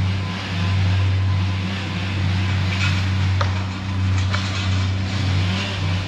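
An engine running steadily at a low, even pitch, its level slowly swelling and easing, with a few faint sharp clicks about midway.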